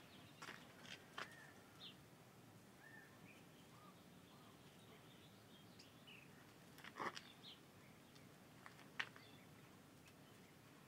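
Faint, scattered short bird chirps and soft clicks over near-quiet background, with a slightly louder short call about seven seconds in and a sharp click about nine seconds in.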